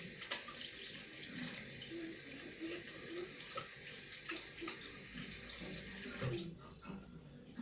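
Water running from a tap into a sink while hands are washed under it, with small knocks and splashes; the water is turned off about six seconds in.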